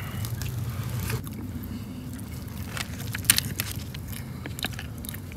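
Eating by hand: fingers picking apart fried bream on a foil tray, with scattered small clicks and crinkles and some chewing, over a steady low rumble.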